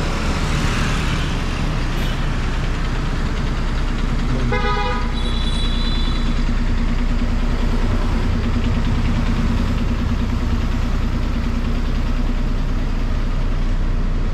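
Steady rumble of motor traffic, with a short vehicle horn toot about four and a half seconds in.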